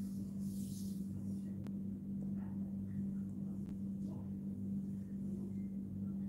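Steady low hum with a couple of faint clicks.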